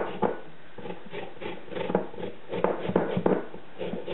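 Lemon rind being rubbed against a small handheld grater, zesting it: a run of irregular short scraping strokes.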